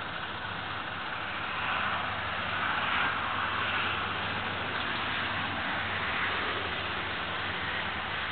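A vehicle engine idling steadily, a low hum under an even hiss.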